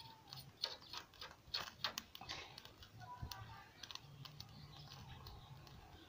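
Faint, irregular crackling and ticking from a charcoal brazier fire as chicken grills over the glowing coals, the clicks thickest in the first three seconds.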